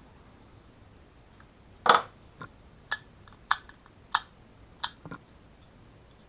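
A series of sharp clicks and taps from small hard parts being handled while wiring switches, about seven in three and a half seconds, starting about two seconds in, the first the loudest.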